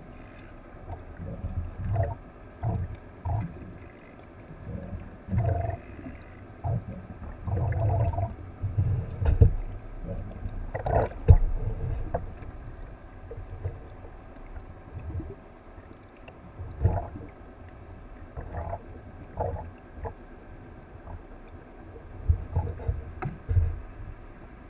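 Muffled underwater sound heard through a submerged camera: irregular low thumps and knocks with water movement, the strongest about eleven seconds in.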